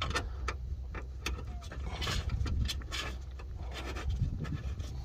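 Scattered light clicks and metallic rattles as window-regulator mounting bolts are threaded in by hand inside a car door, with a short scraping stretch in the middle, over a steady low rumble.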